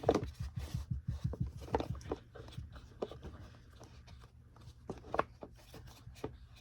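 Plastic parts of a Bissell Cleanview vacuum's motor housing knocking and clicking as the motor cover is fitted back on. A quick run of small knocks comes in the first two seconds, then scattered single clicks.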